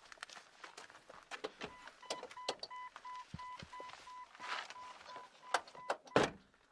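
A car's warning chime beeps steadily at about three beeps a second, over small clicks and knocks of someone settling into the car. The chime stops and a car door shuts with a loud thump near the end.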